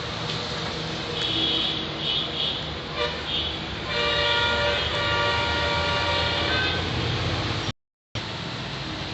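Road traffic noise with a vehicle horn held for about three seconds, starting about four seconds in, after a shorter toot. The sound cuts out briefly near the end.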